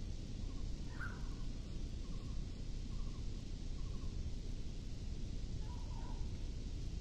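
A few faint, short bird calls, spaced irregularly, the second one the strongest, over a steady low rumble.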